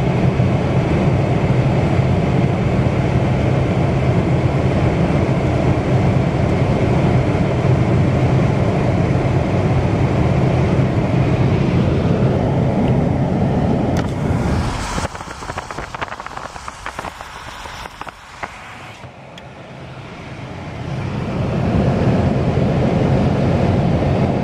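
Steady road and engine drone heard from inside a truck cab driving on a wet highway, with tyre noise. About two-thirds of the way through the drone drops away sharply for several seconds while a run of light clicks and taps is heard, then it builds back up to the same steady level.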